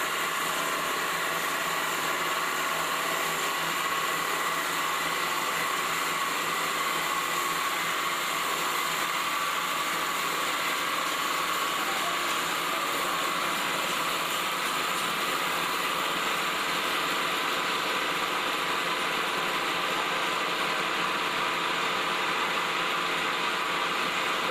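Automatic wood-turning copy lathe running: a steady machine drone with a constant whine in it.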